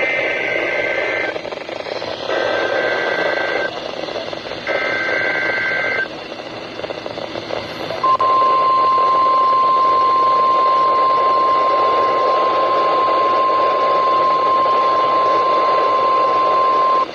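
NOAA Weather Radio test alert: three bursts of the SAME digital header, each about a second of rapidly alternating two-pitch data screech, then about two seconds later the steady single-pitch weather radio warning alarm tone, held for about nine seconds. All of it plays over constant radio receiver hiss.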